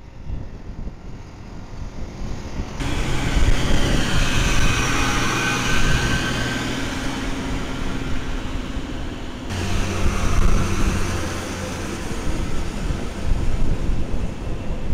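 Engines of yellow on-track maintenance machines, a ballast regulator and a tamper, running as they travel past on the rails with a steady rumble and a higher whine. The sound changes abruptly twice, about three seconds in and again near the middle.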